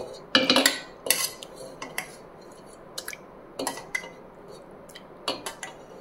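A spoon clinking and scraping against a stainless steel pot and mixer-grinder jar as thick curd is scooped and knocked into the jar. The clatter is loudest in the first second, followed by lighter, scattered taps and scrapes.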